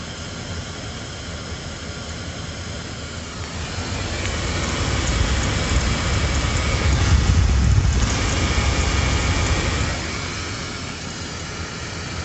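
Mercury Mountaineer engine running at idle after a boost start, the alternator charging the battery at about 14.5 volts. It grows louder for several seconds in the middle, then settles back.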